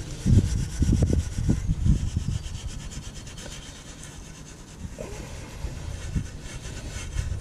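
A hand scrubber worked back and forth on a metal car exhaust tip coated in toilet-cleaner gel, agitating ground-in dirt and carbon. Brisk scrubbing strokes for the first two seconds or so, then softer, steadier rubbing.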